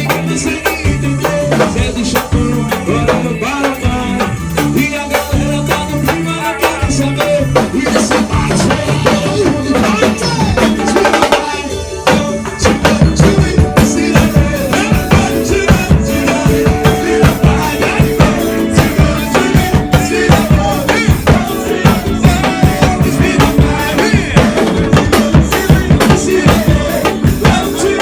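Music with a drum kit: a stepping bass line at first, then a steady, heavier drum beat comes in about halfway through after a brief break.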